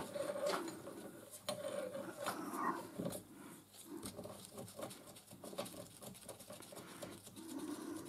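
Quiet metallic clicks and clinks of loose bolts and parts being handled during a strip-down, with a few faint short squeaky tones in the first three seconds.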